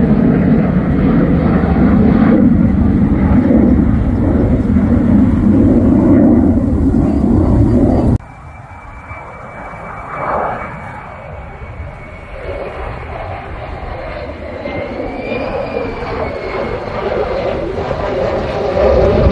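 Loud, steady jet-engine noise from a fighter flying low on approach, cut off abruptly about eight seconds in. It is followed by quieter jet noise, with a faint steady high whine, that swells as an F-35 draws closer on approach.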